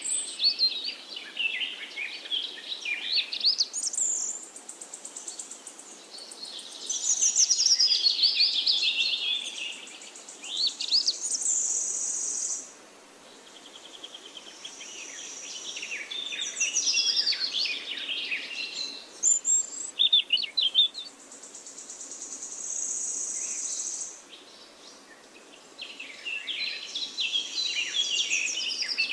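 Wild songbirds singing in a string of quick, varied chirping phrases with short pauses between them, broken by several high, even trills of about two seconds each.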